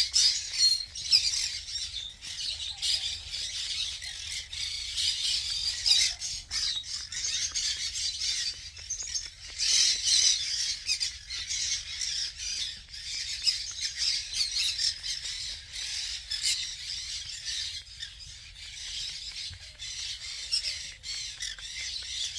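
Parrots chattering and squawking throughout, many high-pitched calls overlapping.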